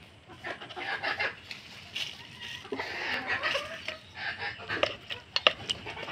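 Hens clucking in short, irregular calls, with a few sharp clicks about five seconds in.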